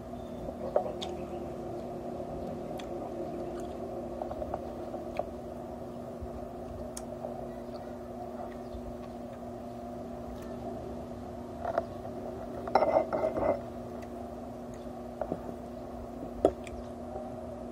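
Eating at a table with wooden chopsticks: quiet chewing and scattered light clicks of the chopsticks against the plate, with a short clatter of louder clicks about thirteen seconds in and one sharp click near the end, over a steady low hum.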